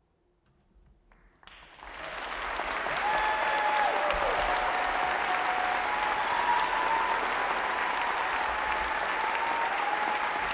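Concert-hall audience applause. It starts from near silence with a few scattered claps, swells within a couple of seconds into full, steady applause, and carries some sustained cheers over it.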